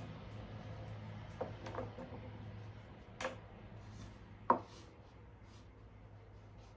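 Strong magnets knocking and clicking: four sharp knocks spaced over a few seconds, the loudest about four and a half seconds in.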